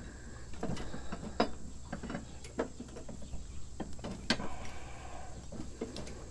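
A steel mulching mower blade being handled and seated onto its spindle under the mower deck: a scattering of light metallic clicks and knocks, the loudest about four seconds in.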